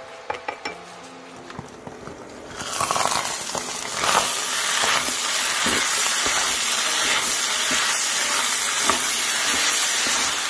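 Fried rice with chicken sizzling in a hot nonstick frying pan, with a spatula scraping and tapping as the rice is stirred and spread out. The sizzle jumps up loudly about three seconds in, as the rice is spread over high heat to brown the bottom, and stays steady to the end.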